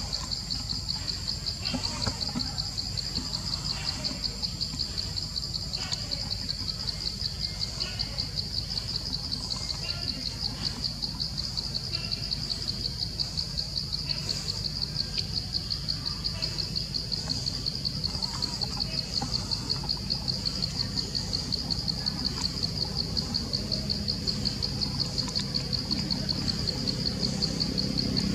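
A steady, high-pitched insect trill that pulses rapidly and keeps going without a break, with no other clear sound standing out.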